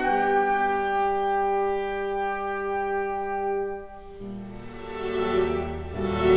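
Symphony orchestra playing: a sustained wind and brass chord held for about four seconds. It then gives way to the strings, which come in softly and swell to a louder, fuller passage near the end.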